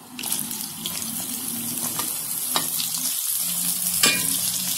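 Sliced onions frying in hot oil in a kadhai, sizzling up strongly just after they go in, with a few clicks of the metal spoon against the pan as they are stirred.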